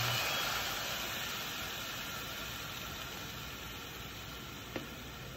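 Broccoli and mushroom stir-fry sizzling in a frying pan, a steady hiss that slowly dies down.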